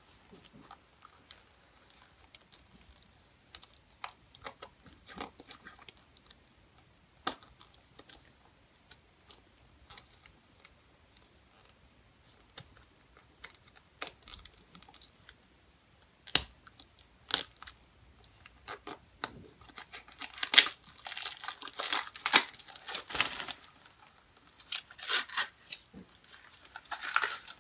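A small foil Shopkins blind-bag packet being handled and torn open: scattered faint crinkles and clicks, then louder bursts of tearing and crinkling plastic-foil packaging about twenty seconds in and again near the end.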